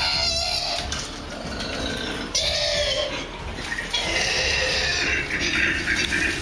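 Two koalas fighting, with harsh animal calls.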